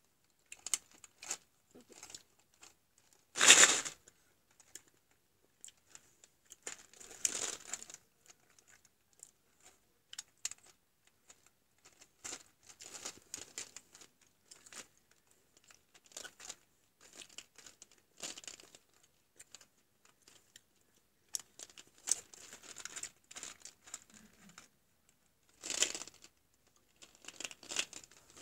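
Irregular rustling and crinkling handling noises close to the microphone, as a toy gumball machine is held and turned. The loudest comes about three and a half seconds in, with further bursts around seven seconds and near the end.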